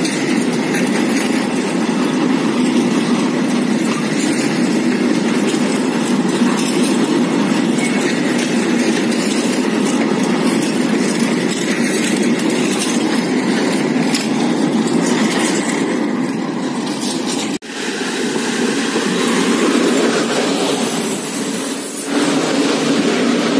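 Freight train of flat wagons rolling past at close range: a steady rumble with the clatter and clicks of wheels over the rails. The sound cuts off abruptly about 18 seconds in, and it changes again shortly before the end.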